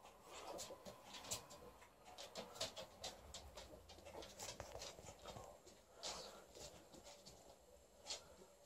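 Faint, scattered clicks and scratches from dogs moving about on a laminate floor.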